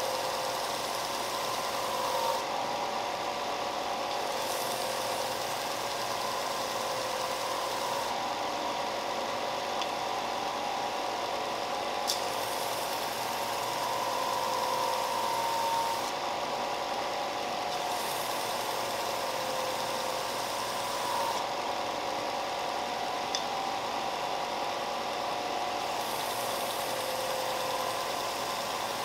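Benchtop belt sander running steadily, with a hiss of sanding that comes and goes in spells of a few seconds as wooden coasters are pressed against the belt. Two light ticks, one in the middle and one later on.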